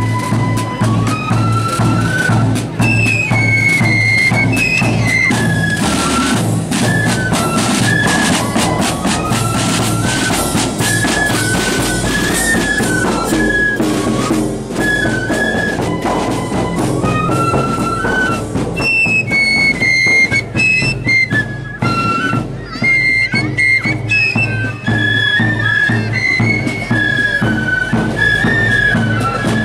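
Marching flute band playing a tune: a unison melody on flutes over snare drums and a bass drum beating time.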